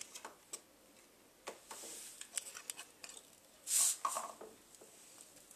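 Handling noise from a homemade ice-cream-stick helicopter with a plastic-bottle body as it is moved about and set down: scattered light clicks and taps, with a louder rustle just before the four-second mark. Its motor is not running.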